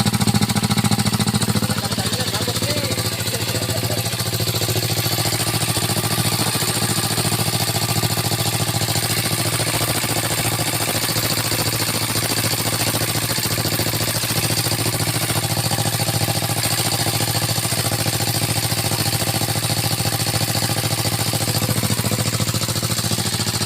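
Single-cylinder Dongfeng diesel engine running through an Akrapovic racing exhaust, giving a fast, steady, pulsing exhaust beat. It eases slightly in loudness about two seconds in, then holds steady.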